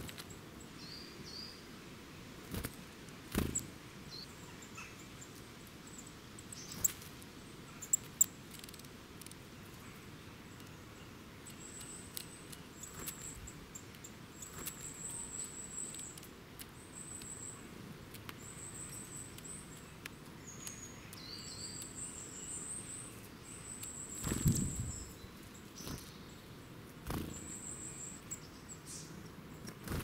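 Small woodland birds giving short, very high thin calls, repeated many times through the second half, with a few sudden wing flutters as birds drop onto the seed pile and take off. The loudest flutter comes about three-quarters of the way through.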